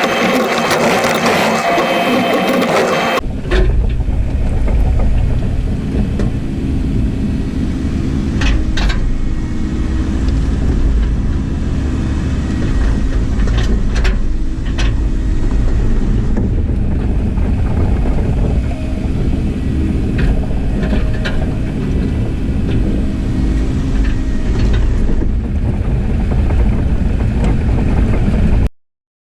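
A JCB digger's diesel engine running steadily with a deep rumble, with a few sharp knocks over it. A brighter, noisier machine sound in the first three seconds switches abruptly to the engine, and the sound cuts off suddenly near the end.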